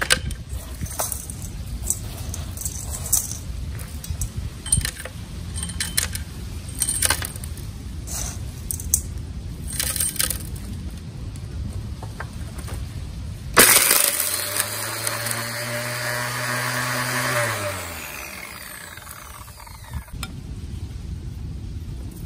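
Small rock pieces clicking and knocking against metal over a low rumble. About 13 seconds in, the Makita 4.5-inch angle grinder driving the crusher starts with a sudden loud burst and runs steadily for about four seconds. It then winds down, falling in pitch, as it is switched off.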